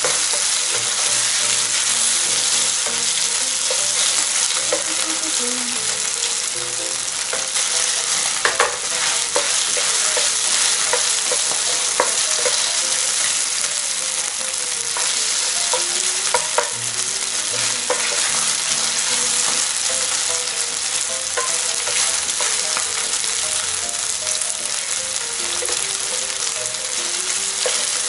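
Small pieces of chicken sizzling in hot oil in a frying pan, while a wooden spatula stirs them, with a few sharp clicks of the spatula against the pan.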